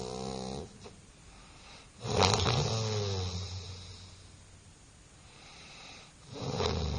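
A person snoring in slow, regular breaths: one snore ends just under a second in, a louder one starts about two seconds in, and another comes near the end, about four seconds apart.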